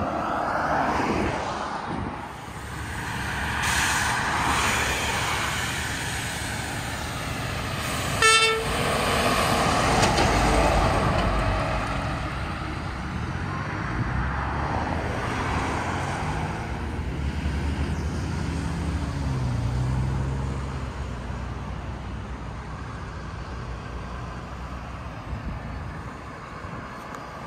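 Road traffic passing on a two-lane highway: trucks and cars drive by one after another, their tyre and engine noise swelling and fading. About eight seconds in, a vehicle gives one short horn toot.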